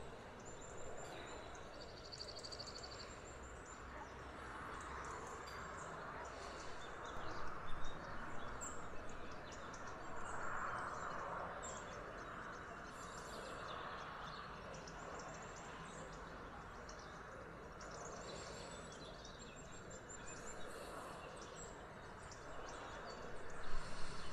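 Outdoor ambience: a faint, steady background hiss with small birds chirping and trilling on and off throughout.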